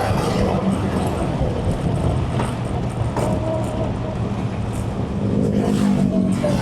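A road vehicle's engine running at a steady pace with road noise, heard from on board.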